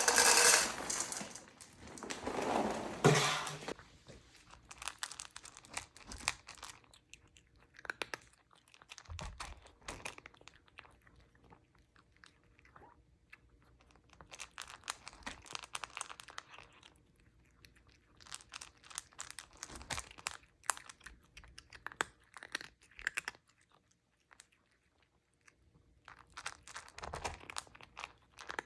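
A cat chewing and crunching food, with wet mouth clicks in irregular bursts and short pauses between them. The first few seconds are louder and denser.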